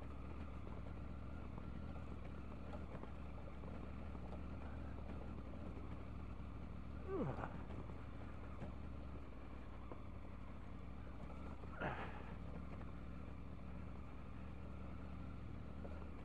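Triumph Tiger 900's three-cylinder engine running steadily while the motorcycle is ridden. A brief sound sweeps quickly down in pitch about seven seconds in, and a short sharp noise comes about twelve seconds in.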